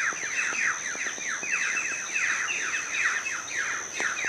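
Birds singing: a fast, continuous series of short downward-sweeping notes, about three a second. A steady high-pitched tone runs underneath.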